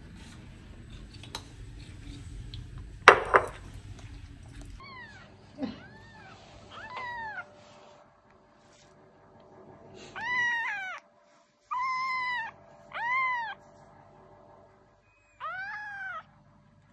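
Very young tabby kitten meowing about seven times. Each call is a short, high, rising-then-falling mew; the first three are faint and the last four, from about ten seconds in, are louder. Before the meows there is a single sharp knock, the loudest sound, about three seconds in.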